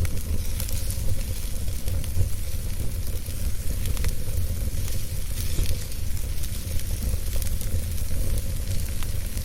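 Wood fire in a fireplace crackling, with many small irregular pops over a steady low rumble.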